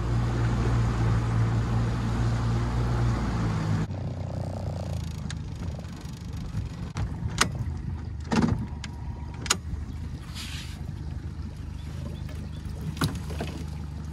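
Boat's outboard motor running under way, throttled back abruptly about four seconds in and then running low and steady. Several sharp knocks come over it in the second half.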